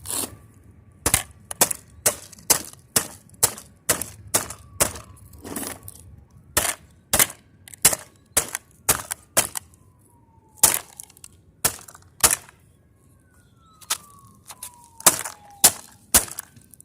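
Hammer blows on a vacuum cleaner's housing and motor, struck repeatedly at about two a second in runs with short pauses, to knock the electric motor loose. A faint siren slides down in pitch in the background, more than once.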